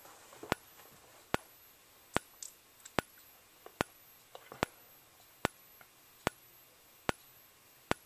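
Wheelock ET-1070 speaker-strobe's 15-candela xenon strobe clicking with each flash, about once every 0.8 seconds. A faint high whine rises after each click as the strobe recharges.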